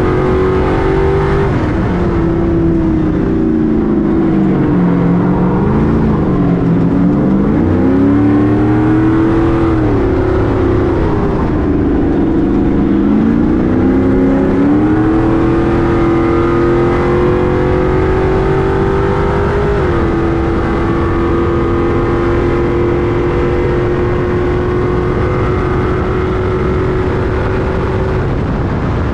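Stadium Super Truck's V8 engine running hard under race conditions. Its pitch drops and climbs back several times as the driver lifts and gets back on the throttle, then holds steady for several seconds near the end.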